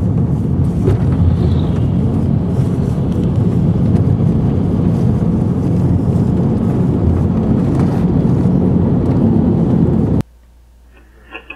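Steady low rumble of a moving car heard from inside the cabin: engine and road noise, cutting off abruptly about ten seconds in.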